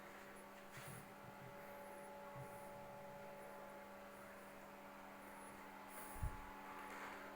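Steady electrical hum with a few faint knocks, the clearest about six seconds in.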